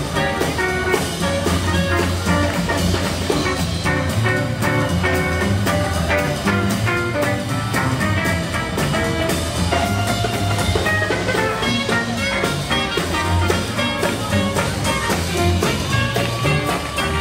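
Swing jazz played by a small band, with a steady beat running under the melody.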